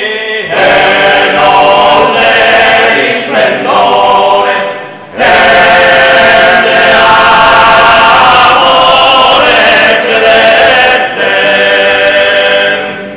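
A Sardinian cuncordu, four male voices singing sacred polyphony a cappella in close harmony. After a short break about five seconds in they hold a long chord, and near the end the phrase closes and fades away in the church's echo.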